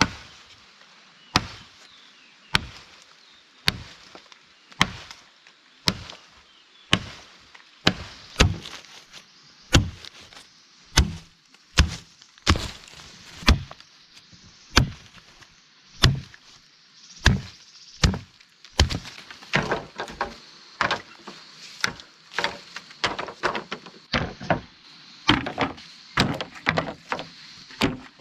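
Repeated chopping strokes of a blade into wood, sharp separate strikes about one a second, coming quicker with lighter strikes between them later on.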